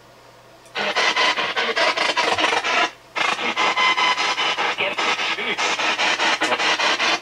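P-SB7 spirit box sweeping the AM radio band: a rapid, choppy stream of static and clipped fragments of broadcast sound. It starts about a second in and breaks off briefly near three seconds before sweeping on.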